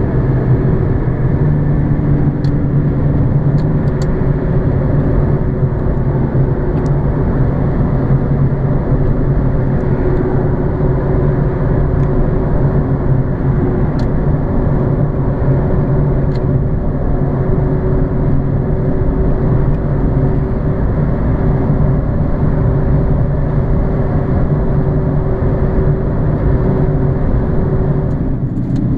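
Nissan 370Z's 3.7-litre V6 droning at a steady highway cruise, with tyre and road noise, heard from inside the cabin.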